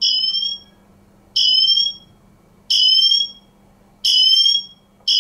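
Apple Watch Ultra's emergency siren, set off by holding down the Action button: four short, high, shrill beeps about every second and a half, then near the end the continuous warbling siren begins.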